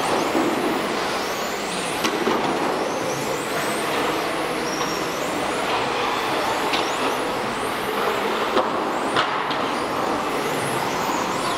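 Electric radio-controlled model racing cars running laps, their motors whining in high gliding pitches that rise and fall with throttle over a steady wash of noise, with a few sharp clicks.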